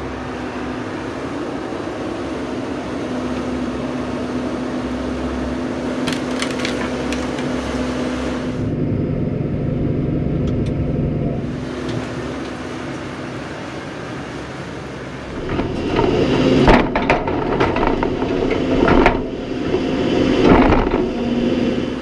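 New Holland loader tractor's engine running steadily while the loader works a tote bag of soybean meal. From about two-thirds of the way in, louder rough noise and knocks come over the engine.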